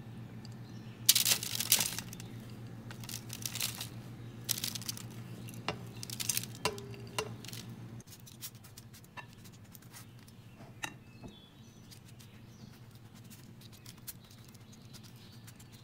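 Silicone spatula scraping a sticky oat, nut and seed mixture out of a plastic bowl onto parchment paper in a baking tray, with crinkling of the paper and crunchy rustles of the loose oats. Several loud scraping bursts come in the first half, then quieter scrapes and small clicks as the mixture is spread, over a low steady hum that stops about halfway.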